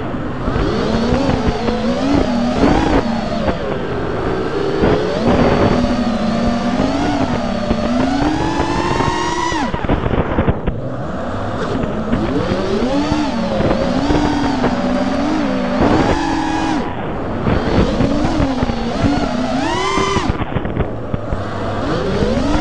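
Racing quadcopter's brushless motors (T-Motor 2305 2450kv) spinning HQProp Ethix S3 propellers, heard from the onboard camera. They make a buzzing whine whose pitch keeps rising and falling with the throttle, and the whine drops away briefly three times.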